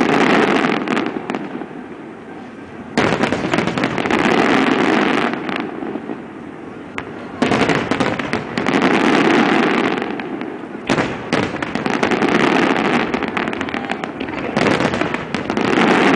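Aerial fireworks display: barrages of shells bursting with sharp bangs and crackling, in loud waves that start suddenly about every four seconds and each rumble on for a few seconds.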